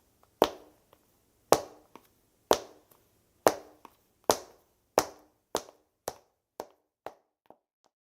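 Footsteps of hard-soled dress shoes walking on a hard floor, each step a sharp heel click with a short echo. About eleven steps, coming quicker and growing fainter toward the end.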